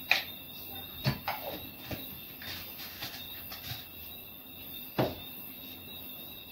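Light clicks and knocks of small kitchen containers and utensils being picked up and set down, several spaced out, the sharpest just after the start and about five seconds in.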